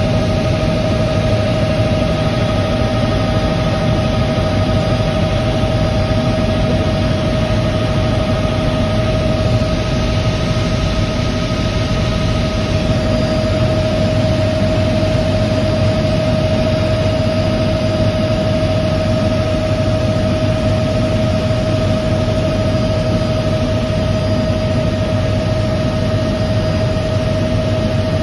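Helicopter in flight heard from inside the cabin: a steady, loud drone of engine and rotors with a constant whine on top.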